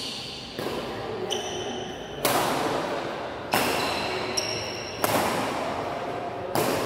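Badminton rackets striking a shuttlecock in a fast doubles rally, a sharp smack about every one and a half seconds, each echoing in the hall. Between the hits, shoes briefly squeak on the court floor.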